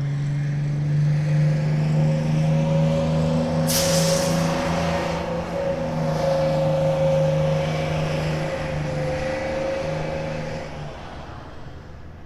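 Bus engine running steadily, with a short loud hiss about four seconds in; the sound fades away near the end.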